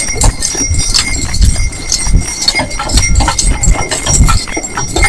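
A team of two small horses moving along a packed snowy road, their hoofbeats coming in a steady, dense run. Quick high jingling and clicking runs over the hoofbeats throughout.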